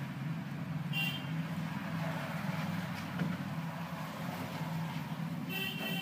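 Background road traffic: a steady low hum with two short high-pitched toots, about a second in and near the end.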